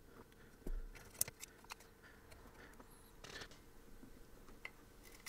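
Faint bench handling noises: a soft thump, a sharp click and a short rustle as small parts and the antenna kit's circuit board are picked up and moved on the work mat.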